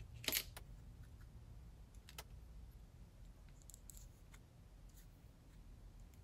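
Faint clicks of small screws and tools being handled while a plastic folding worklight is taken apart: one sharper click about a third of a second in, then a few lighter ticks, over a low steady hum.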